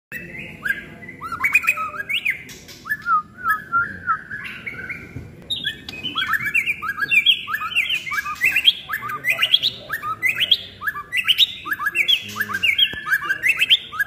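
White-rumped shama singing: a continuous run of short, quick whistled phrases that grows denser about halfway through.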